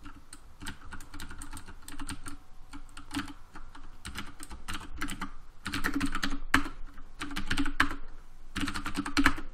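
Computer keyboard typing: scattered keystrokes at first, then quick runs of rapid clicks in the second half.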